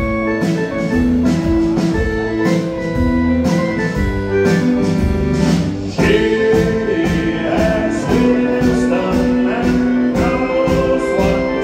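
Live rock band playing: keyboard, drum kit and electric guitar over a steady beat, with a new lead line coming in about six seconds in.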